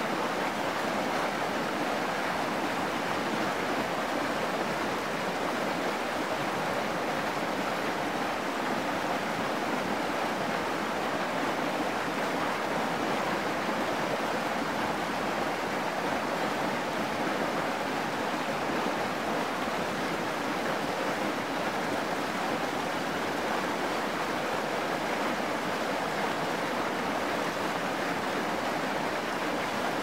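Mountain stream rushing and splashing over rocks in a shallow rapid: a steady, even water noise.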